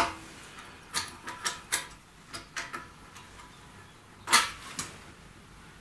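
Light metal clicks and knocks as the filler cap on a Dnepr MT16 motorcycle's fuel tank is worked open, the loudest knock coming about four seconds in.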